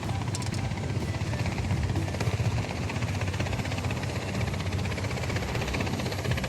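Army transport helicopter running steadily, its rotor blades beating in a fast, even chop over the engine noise.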